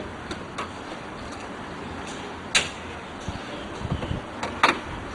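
Several sharp clicks and clunks from a car being opened up by hand, over a steady background hiss; the loudest comes about two and a half seconds in and another near the end.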